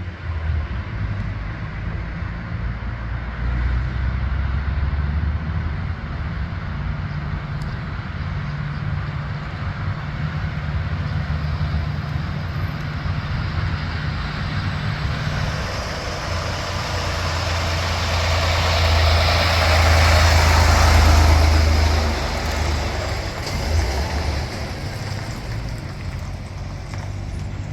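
Diesel engine of a semi-truck hauling a trailer, running low and steady, growing louder as it passes close by about twenty seconds in, then fading.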